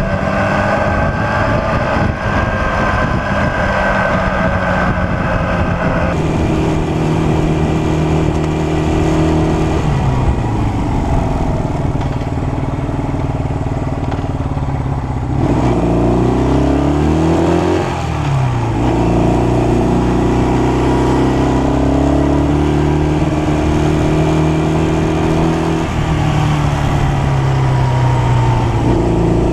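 Honda CL175's small parallel-twin engine running while the motorcycle is ridden. Its pitch rises and falls as it speeds up and slows, with a marked drop and climb about halfway through.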